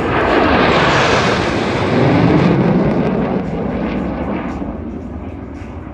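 Two Thunderbirds F-16 Fighting Falcon jets making a low pass, their engines a loud roar that builds sharply at first, peaks about two seconds in, then fades away.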